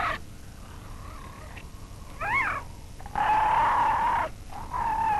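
Young harp seal crying with a cat-like wail: a short wavering cry about two seconds in, then a long steady cry lasting about a second, and another starting near the end.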